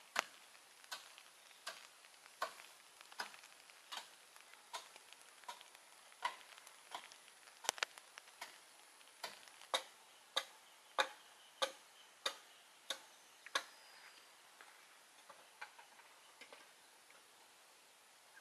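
A machete chopping wood into chips against a wooden block, one sharp knock about every 0.7 seconds. The strokes stop a few seconds before the end, leaving a few fainter, scattered knocks.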